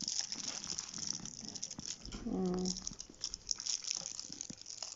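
Clear plastic wrapping on a new handbag's handles crinkling and rustling as the bag is handled, a steady crackle of many small ticks.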